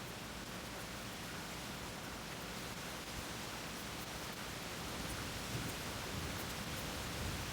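Steady rain falling, an even hiss with faint scattered drop ticks. A low rumble of distant thunder swells under it in the last couple of seconds.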